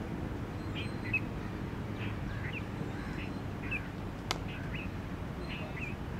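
A bird chirping again and again in short calls, roughly two a second, over a steady low background noise, with one sharp click about four seconds in.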